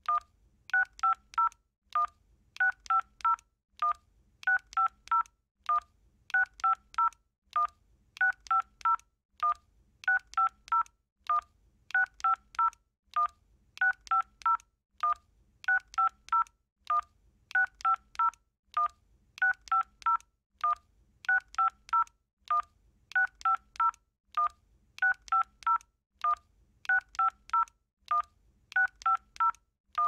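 Touch-tone telephone keypad dialing: quick runs of about six two-tone beeps, the same run of digits repeating roughly every two seconds.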